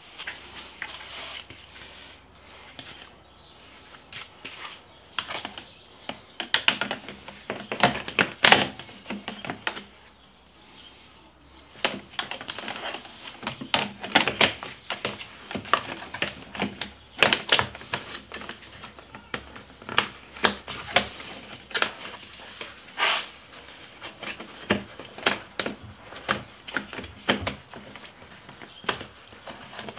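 Irregular clicks, taps and knocks of hard plastic parts being handled and fitted onto a motorcycle's rear tail section, with a few louder knocks.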